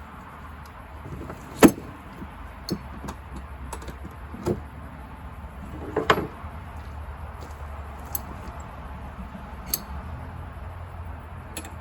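Scattered knocks, clicks and clinks of gear being handled, the sharpest about one and a half seconds and six seconds in, over a steady low rumble.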